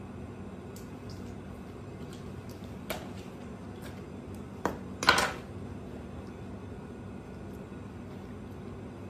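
Steady hum of a commercial kitchen, with a few short knocks and one brief clatter about five seconds in.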